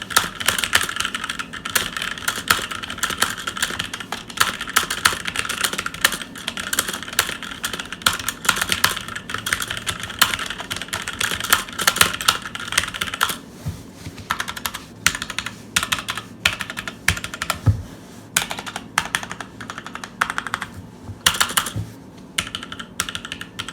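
Typing sound test on a Motospeed TK62 mechanical keyboard with switches sold as MX Reds, which the owner doubts are genuine. Fast, continuous keystroke clicking for about half the time, then slower typing in short bursts with gaps.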